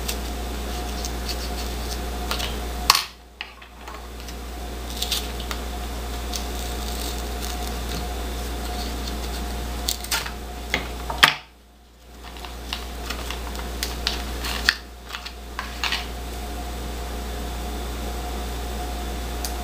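Scattered sharp clicks and light scraping as a paper battery card and small parts are handled with pliers, over a steady hum. The hum drops out briefly three times, each right after one of the loudest clicks.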